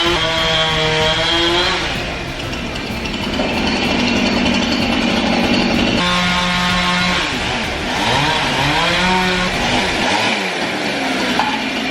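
Chainsaw cutting off old limbs and knots from an elm log. The engine revs up and down with its pitch swooping, and holds a steadier note for a few seconds in the wood.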